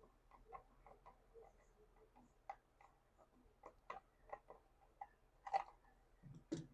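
Faint, irregular small clicks and ticks of a screwdriver and needle-nose pliers working a small screw and nut into a 3D-printed plastic magazine, with a couple of slightly louder knocks near the end.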